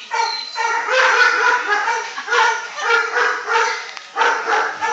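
Dogs baying and barking: a run of drawn-out, pitched calls following one another with hardly a pause.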